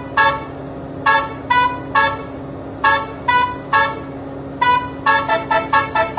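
Bus basuri telolet multi-tone horn playing a tune of short toots. The pitch changes from note to note, the toots come in groups of two or three with short gaps, and a quicker run of notes comes near the end. A steady low hum runs underneath.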